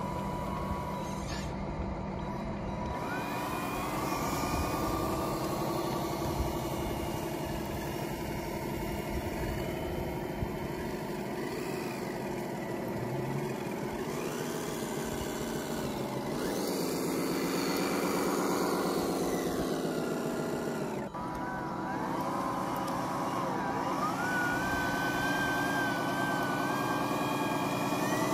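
Radio-controlled model semi-truck running while it hauls an RC bulldozer on a lowboy trailer. Its motor whine rises and falls in pitch with speed, cuts out briefly about 21 seconds in, then climbs again.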